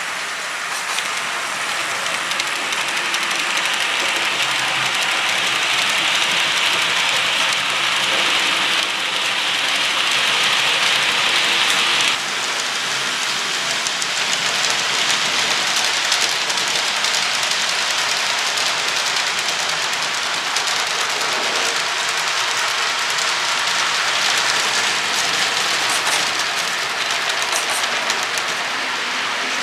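HO scale model diesel trains running on the layout track: a steady hiss of small wheels rolling on rail and the locomotive's electric motor. A brighter, louder part of the hiss stops abruptly about twelve seconds in, and a slightly quieter rolling sound carries on.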